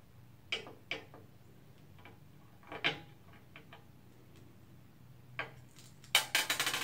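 Small sharp clicks and knocks of a screwdriver working on small screws, a few scattered at first, then a quick rattling run of clicks near the end.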